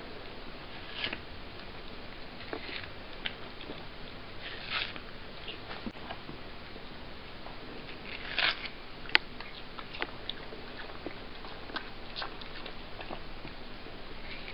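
Cat biting and chewing watermelon: irregular small clicks and short chewing noises over a steady hiss, with a few louder bursts and one sharp click partway through.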